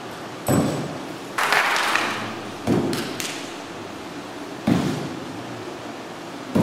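Shuriken thrown one after another and striking a straw-mat target: about five dull thuds, one to two seconds apart, each trailing off briefly.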